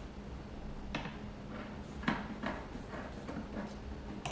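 Handling noises as paper masking tape is worked onto a thin clear plastic bottle with scissors in hand: a few short crinkles and clicks, roughly a second apart, over a faint steady hum.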